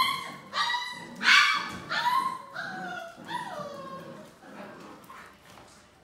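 Six-week-old Labrador Retriever puppies yipping and giving short high-pitched barks while they play and tug at toys. There are about five sharp calls in the first three and a half seconds, some falling in pitch, then fainter whines trailing off.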